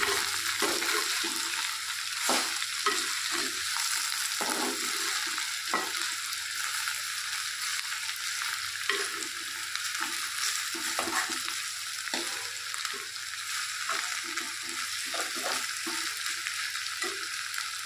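Sliced okra and onions frying with a steady sizzle in a terracotta clay pot, stirred with a steel spoon that scrapes and knocks against the pot again and again.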